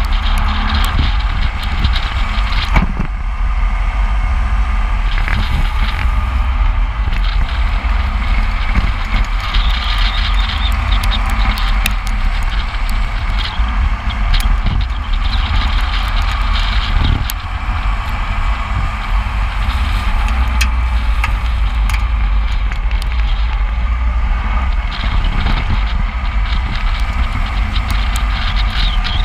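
Wind buffeting a microphone moving at speed, over the steady road and tyre noise of a car driving downhill, with scattered small ticks.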